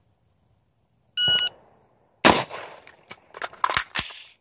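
A shot timer gives one short beep, and about a second later an AR-15 rifle fires a single loud shot. A quick run of sharp metallic clicks and clacks follows as the magazine is swapped and the rifle is made ready to fire again.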